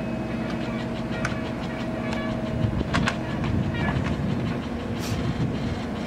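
JCB 3DX backhoe loader's diesel engine running steadily under load as the backhoe arm digs, with several sharp clanks from the bucket and arm, the loudest about three seconds in.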